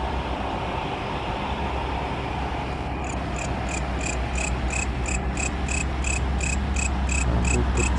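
A cricket chirping at an even pulse of about three chirps a second, starting about three seconds in, over a low steady rumble of open-air background noise.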